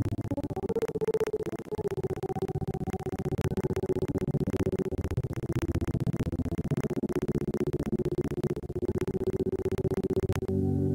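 Background synthesizer music with a rapid fluttering pulse over low sustained notes. Just before the end it gives way to a smooth, steady ambient chord.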